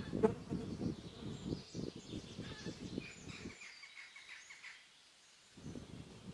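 Wooden hive frames knocking and scraping as a comb frame is levered out of a beehive body with a metal hive tool: a run of short soft knocks and rustles in the first half, and a few more near the end. Birds chirp in the background about halfway through.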